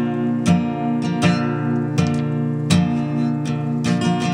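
Acoustic guitar strumming held chords, with a strong strum about every three-quarters of a second and no singing: the instrumental accompaniment between sung lines.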